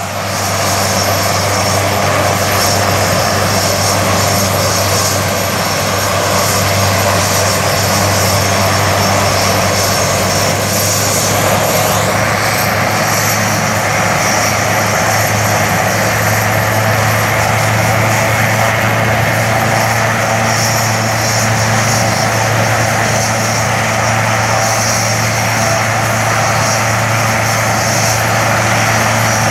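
Sikorsky S-76 twin-turbine helicopter running on the ground with its rotors turning: a steady high turbine whine over the low drone of the rotors, holding level throughout.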